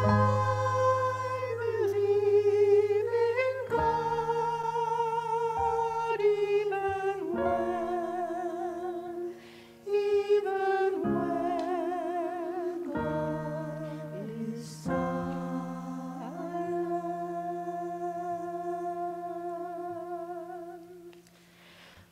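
A small church choir singing a slow hymn, several voices with vibrato over steady held low accompanying notes. It dips briefly about halfway through and fades out near the end.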